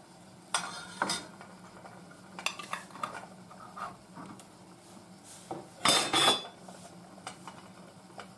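Kitchen clinks and knocks as a metal ladle works in a steel pot of boiling pickling liquid and over glass jars, then a metal lid is put on a filled glass jar and screwed down. The loudest clatter comes about six seconds in, with a short ring.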